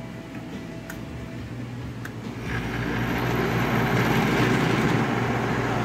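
1966 Admiral Royal 106 window air conditioner's compressor kicking on over the running fan. Two faint clicks come first. About two and a half seconds in, a low hum and rushing noise swell up and then run steadily as the unit starts building head pressure.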